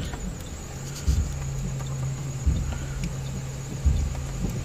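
Inside a vehicle in heavy rain: a vehicle engine runs with a steady low hum under the patter of rain on the bodywork and glass. A dull thump repeats regularly, about every second and a half.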